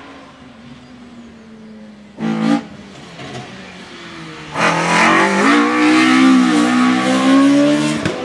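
Race car engine revving hard as the car comes up the hill-climb course and passes close, its pitch rising and dipping through the revs. Before that the engine is faint in the distance, with a short loud burst about two seconds in.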